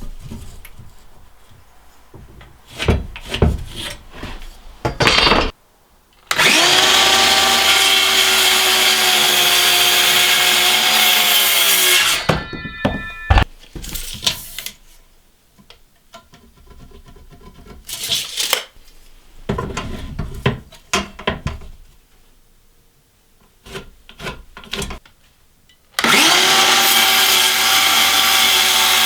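Electric power saw spinning up and cutting wood for about six seconds, then winding down, and starting up again near the end. Between the cuts, boards and tools knock and clatter.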